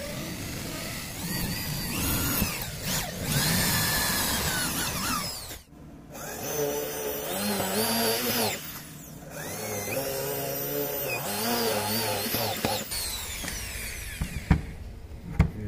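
Handheld electric drill boring holes into a hardwood block, its motor pitch rising and falling as the bit bites and is eased off. It stops briefly about a third of the way in, then runs again, and near the end there are a couple of sharp knocks. The holes rough out the waste from a wooden hand plane's mouth before chiselling.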